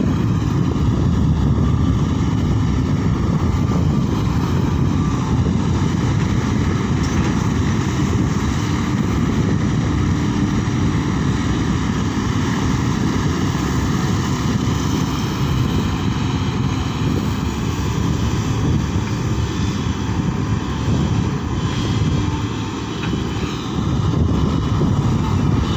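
Sany SY140 excavator's diesel engine running steadily under load as the machine digs and swings. A continuous low drone with no pauses.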